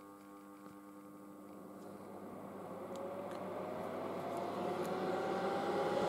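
Fan motor of a late-1960s General Electric HD-8C bonnet hair dryer running up to speed: a quiet whir that grows steadily louder, with a whine rising in pitch over the second half. The owner calls it pretty damn quiet.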